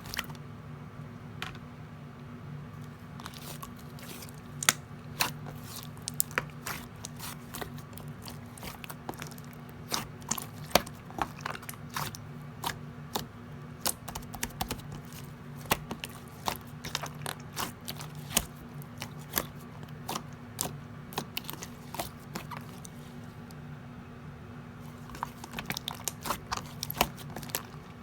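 Slime being pressed and worked by hand, making a run of sharp clicking and popping sounds that come thick and fast through most of it. A steady low hum runs underneath.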